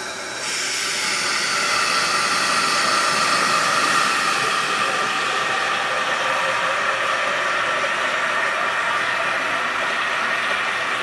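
Liquid carbon dioxide released from a cylinder valve and rushing through a hose into a dry ice maker box, a loud steady hiss that grows louder about half a second in, as the expanding CO2 freezes into dry ice.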